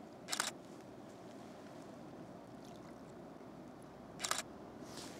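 A camera shutter firing twice, two short clicks about four seconds apart, over a low steady background noise.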